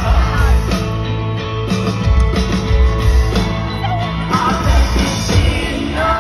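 Live concert music: a singer's voice over a full band with a heavy bass.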